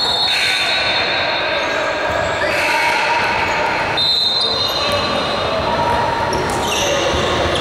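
Echoing gymnasium sound during a basketball game: a basketball bouncing on the hardwood court and a hum of voices. A few short high-pitched tones sound at the start, about four seconds in and again near the end.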